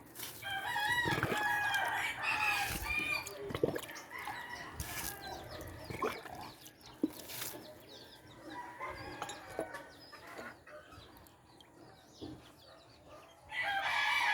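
A rooster crowing: one long call for the first few seconds and another starting near the end, with fainter chicken calls and a few scattered knocks in between.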